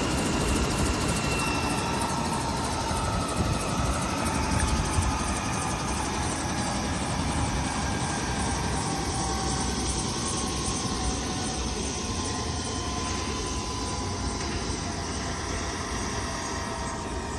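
Airbus H135 twin-turbine helicopter winding down after engine shutdown: a turbine whine slowly falling in pitch over the steady rush of the still-turning main rotor, gradually getting a little quieter.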